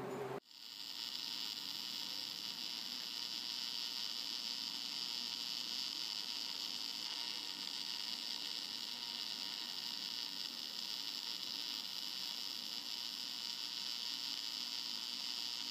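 MIG welding arc sizzling steadily as a bead is laid. It starts suddenly about half a second in and stops suddenly at the end. The even sizzle is the sign that the welder's settings are correct.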